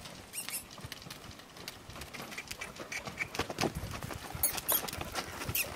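Horse's hoofbeats on the soft sand footing of a round pen, an irregular run of dull thuds that grows louder as the horse comes closer.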